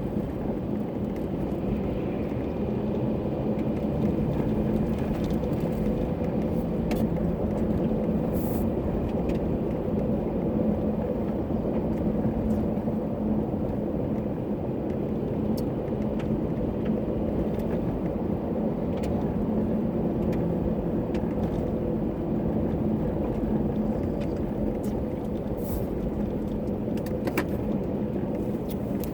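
Steady road and engine noise inside a moving car's cabin while driving on a snow-covered road, with a few faint ticks scattered through it.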